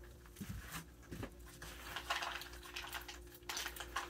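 Scattered light clicks and crunches of a raccoon and a baby striped skunk eating peanuts off a wooden deck, irregular and unhurried. A faint steady hum comes in about a second in.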